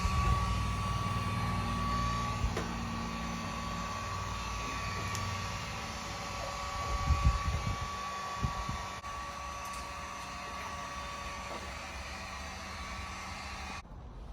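A small electric blower motor running steadily with a thin, constant whine; the sound changes abruptly about nine seconds in and again near the end.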